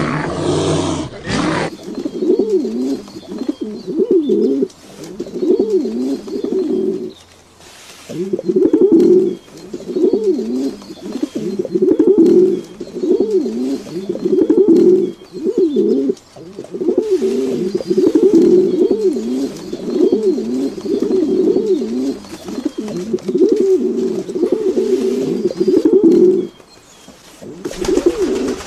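A bird cooing over and over, in runs of low, wavering calls with a couple of short pauses. A brief, different animal sound comes first, and a new sound begins near the end.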